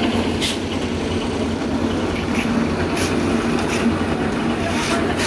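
Engine of a portable concrete mixer running steadily, with a few sharp clinks and scrapes of work on top.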